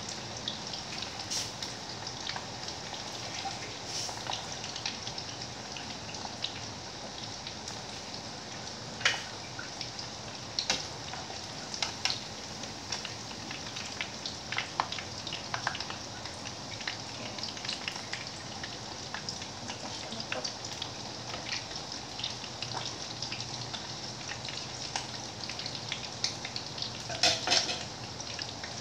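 Minced pork patties sizzling and crackling as they fry in oil in a frying pan, with scattered sharp pops and clicks. Near the end there is a brief clatter.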